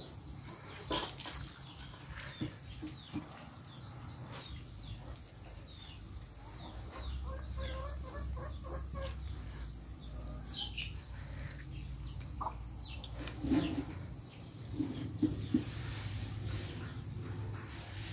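A chicken clucking nearby, with a run of short repeated clucks about eight seconds in. Under it is the soft rustle and handling of a cheesecloth being folded and pressed over tofu curds in a plastic colander.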